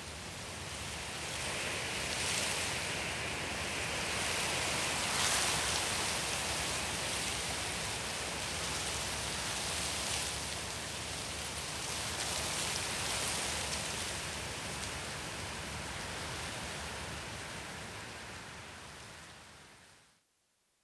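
Steady, rushing, rain-like noise that swells a few seconds in, then fades out to silence near the end.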